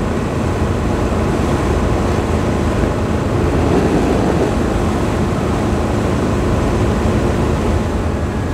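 Steady road and engine noise heard inside the cab of a 22-foot motorhome cruising at highway speed on smooth, freshly paved asphalt.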